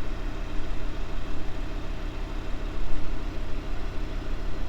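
Vehicle engine running with road noise, a steady low rumble heard from inside the vehicle as it drives along a dirt track.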